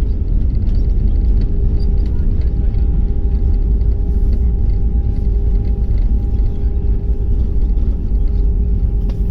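Inside the cabin of an Airbus A319 on the ground after landing: a loud, steady low rumble of the wheels and airframe on the runway, with the steady whine of its CFM56 engines.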